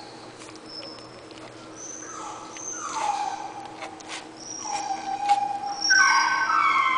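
Young puppies whimpering and squeaking: a few short high-pitched cries that slide down in pitch, the loudest one near the end.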